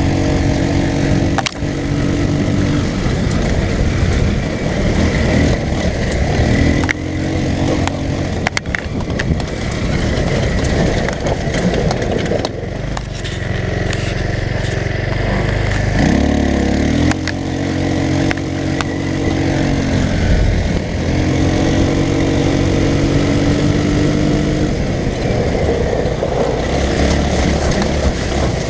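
Off-road go-kart's small engine running hard, its note rising and falling repeatedly as the throttle is opened and eased off, with rattling noise from the ride over rough ground.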